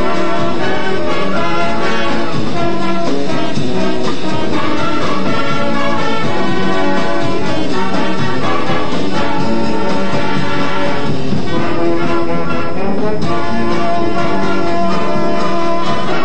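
High school marching band playing a brass-heavy piece at full, steady volume, recorded in the band room.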